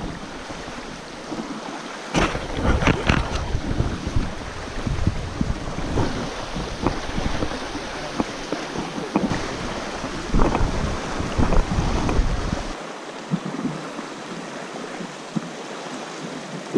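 Fast stream water rushing over rocks while a plastic kayak is hauled through it by its bow line, with irregular knocks and splashes and wind buffeting the microphone. Near the end the buffeting and knocking stop abruptly, leaving a quieter water sound.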